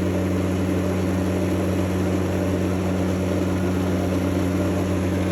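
Goser portable mini washing machine running on its setting C in a sink of water: a steady, loud, low hum as its vibration shakes the whole sink.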